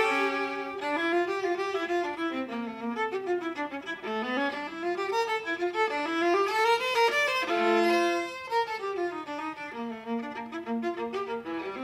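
Viola playing quick running passages, the notes sweeping up and down in arpeggio-like figures.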